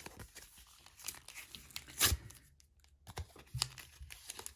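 Plastic foil wrapper of a Pokémon booster pack being torn and crinkled by hand: a run of crackling tears, the sharpest and loudest about two seconds in. The pack is a tough one to open.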